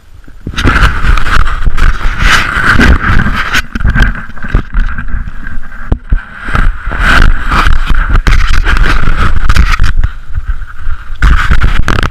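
Skate skis scraping and gliding over snow, with wind buffeting the action camera's microphone. The noise comes in loudly about half a second in and surges unevenly.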